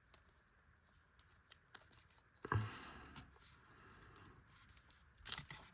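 Quiet handling of a plastic action figure: a few faint, short clicks and one brief knock about two and a half seconds in, with near silence between them.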